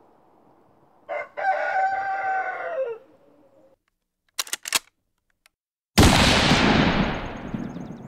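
A rooster crowing once, the call falling off at the end, then a few sharp clicks and a sudden loud bang that fades away over about two seconds.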